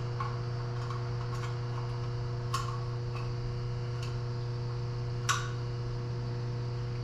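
Scattered light clicks and taps of metal parts and hand tools being handled during an engine teardown, with a louder click about two and a half seconds in and the loudest just past five seconds. A steady electrical hum runs underneath.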